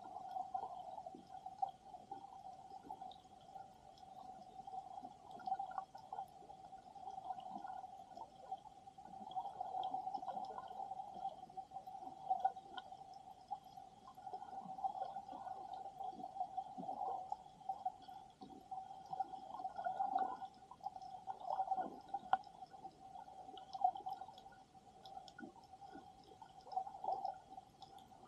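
Water moving around a submerged camera, heard underwater: irregular gurgling and sloshing with scattered small clicks, over a steady mid-pitched hum.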